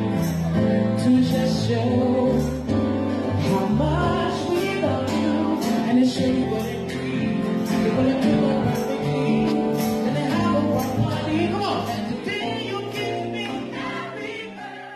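A man singing into a microphone with a live band that includes an acoustic guitar; the music fades out near the end.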